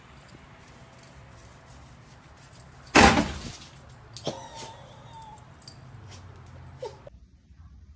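A single loud bang about three seconds in, followed by a few faint knocks and clicks.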